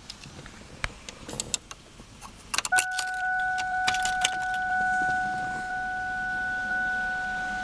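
Keys jangling and clicking at the ignition of a 1999 Ford Taurus wagon. Then, about three seconds in, the engine starts on a rainy cold start and settles into a steady run with a constant high whine.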